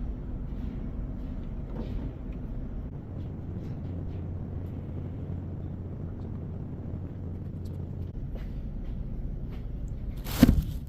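A steady low machine hum, with a single loud knock near the end.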